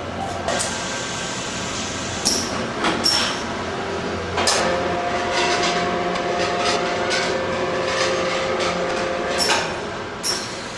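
Multi-head ultrasonic plastic welding machine working on a car dashboard air duct. Sharp mechanical clunks and hisses come at uneven intervals as the welding heads move, some followed by a brief high ringing tone, and a steady tone is held from about four to nine and a half seconds in.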